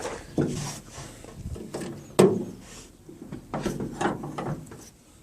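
Knocks, rubbing and clicks of parts being handled, with one sharp click about two seconds in.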